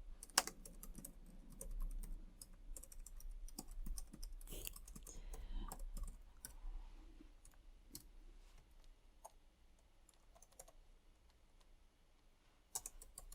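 Computer keyboard typing: bursts of quick key clicks that thin out and grow fainter over the second half.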